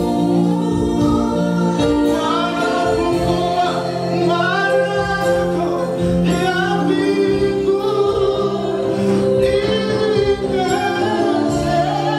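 Live gospel worship song: a male lead singer with backing voices, over sustained accompaniment chords.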